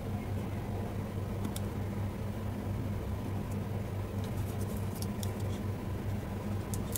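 Steady low hum with scattered faint clicks and scratches of hand-handling a speaker's lithium battery pack while uncovering its BMS protection board.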